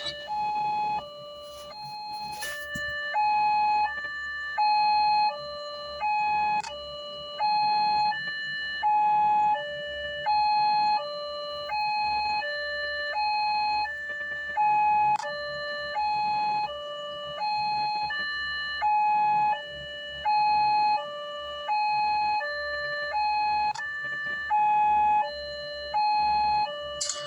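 Small two-tone siren alternating evenly between a high and a low tone, about one high-low cycle a second, with a short click every eight or nine seconds.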